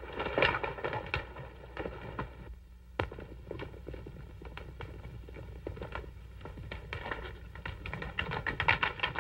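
Hoofbeats of a group of horses riding off at speed, an irregular clatter of many hooves on the ground that grows denser and louder near the end.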